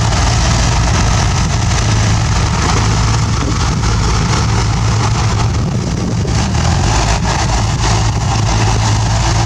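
Bulldozer engine running steadily with a deep hum, easing briefly a little past the middle.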